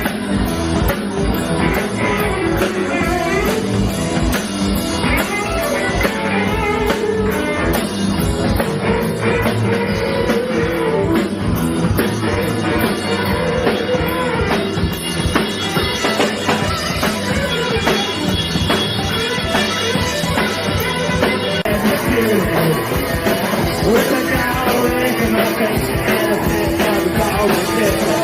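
Live rock band playing: drum kit, bass and guitars driving a steady beat, with a singer's vocals over them.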